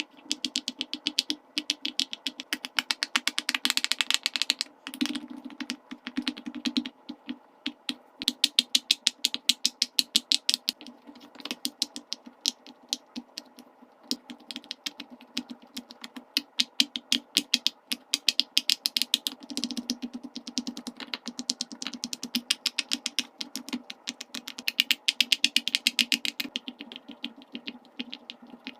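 Silicone pop-it fidget toy bubbles being pressed one after another, quick runs of soft pops several a second with short pauses between runs, over a steady low hum.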